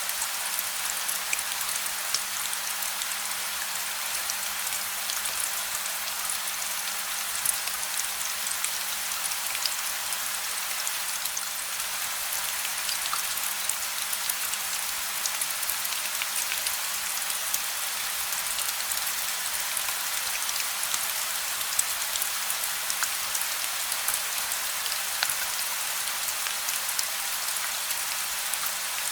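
Steady gentle rain with no thunder: an even hiss with many separate drops ticking on a surface.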